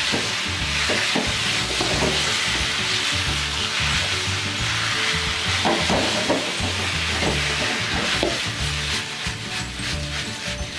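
Chicken pieces sizzling in hot oil in a wok while a spatula stirs them and scrapes the pan. Background music plays underneath.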